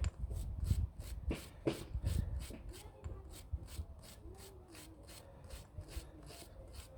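A brake caliper slider pin being wiped by hand, rubbing with some knocks and handling of metal parts, strongest in the first three seconds, then quieter. The pins are being cleaned dry, without brake cleaner. A faint, regular high ticking, about three or four a second, runs underneath.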